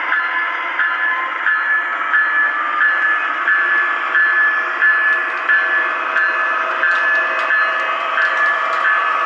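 O gauge model train's onboard electronic sound system playing a repeating ring about every two-thirds of a second over steady running noise. The thin sound of a small speaker.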